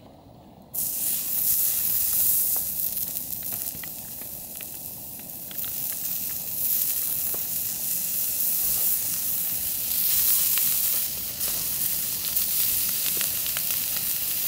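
Meat sizzling as it cooks: a steady frying hiss with scattered small pops, starting suddenly under a second in.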